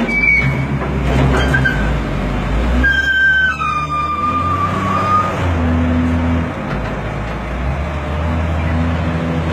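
Heavy diesel machinery, a wheel loader working beside a dump truck, running with a deep steady rumble that swells about six seconds in. Over it come a few high thin screeches, the longest from about three to five seconds in, falling slightly in pitch.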